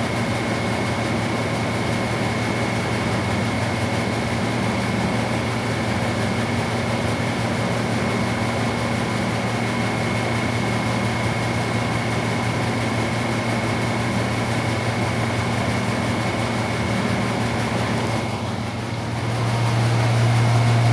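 Steady hum of running refrigeration machinery, with a strong low mains-type hum and a thin high steady tone over a noise haze. Near the end it dips briefly, then the low hum comes back louder.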